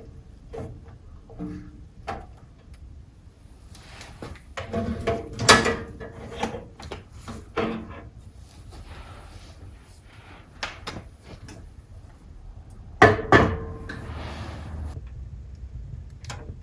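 Knocks and clatter from lighting and loading a wood stove, with a short metallic ring on some strokes and two loud clanks near the end.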